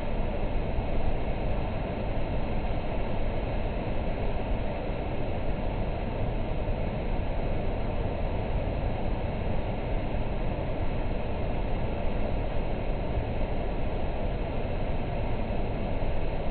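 Steady city noise: an even, low rumble with no distinct events.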